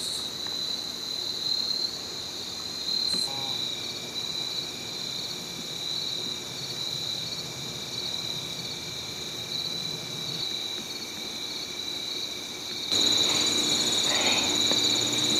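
Steady high-pitched chirring of an evening insect chorus, crickets and similar insects, which jumps louder about thirteen seconds in.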